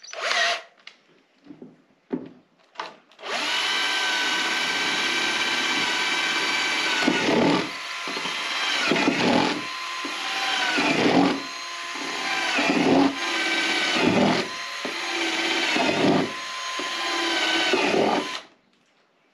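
Electric drill boring drainage holes through a plastic container: a few short knocks, then about three seconds in the motor starts and whines steadily, its pitch dipping as the bit bites, about every second and a half to two seconds as hole after hole goes through, before it stops suddenly near the end.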